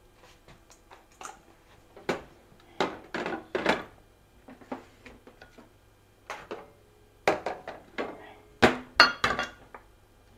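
Bowls and kitchen utensils clinking and knocking as they are handled and set down on a counter: a scatter of separate knocks, busiest and loudest near the end.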